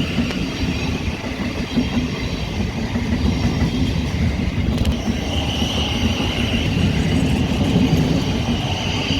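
Thameslink Class 700 electric multiple unit moving along the platform: a steady rumble of wheels on rail with a high whine that grows stronger about halfway through.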